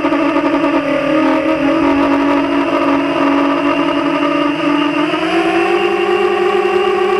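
Multirotor drone's motors and propellers giving a steady, loud whine that dips slightly about a second in and rises in pitch about five seconds in as the throttle changes.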